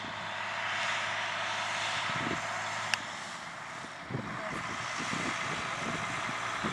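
Wind blowing across the microphone: a steady hiss with irregular low buffeting that grows gustier from about four seconds in. A single sharp click comes just before three seconds.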